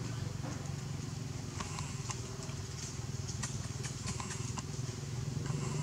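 Steady low motor hum, like an engine running at idle, with scattered light clicks and crackles over it.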